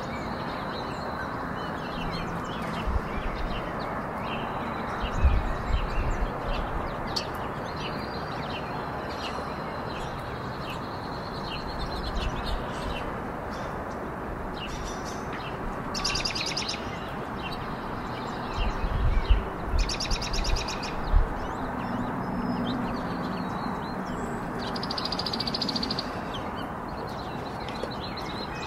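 Small songbirds chirping over a steady background hiss, with two short rapid trills past the middle and a few low thumps.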